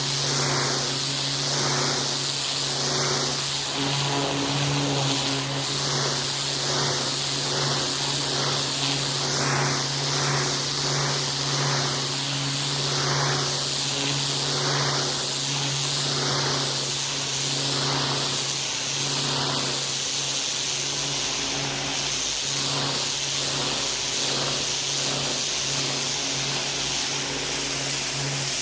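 Pressure washer running: a steady hissing spray over a steady motor hum, the spray sound swelling and fading about once a second.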